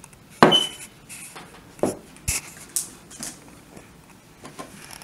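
A drinking glass is set down on a table with a sharp knock and a brief ring. Several smaller plastic clicks and knocks follow as the blade base of a bullet-style personal blender cup is handled and twisted off.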